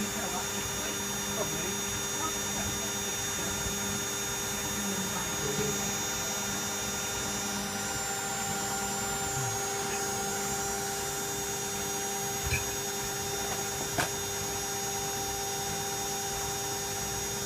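Candy Aquamatic 1000T compact washing machine in a fast spin with an empty drum, making a steady hum of several even tones. A short click comes near the end.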